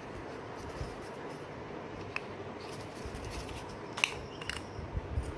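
Faint handling noise of a camera lens and its packaging: light rustling with a few small clicks, the sharpest about four seconds in.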